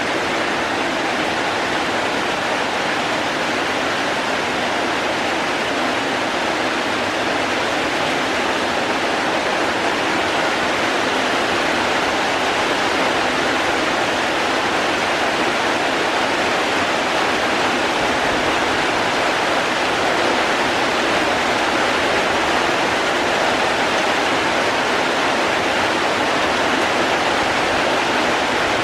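Heavy rain falling as a steady, unbroken rush of water.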